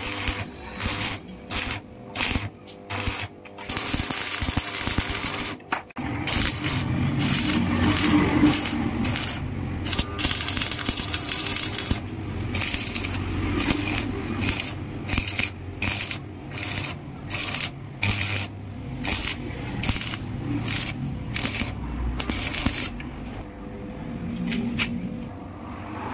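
Stick (arc) welding on square steel tubing: the arc crackles in short separate bursts for the first few seconds, then runs continuously for a long weld from about four seconds in, breaking back into short bursts near the end.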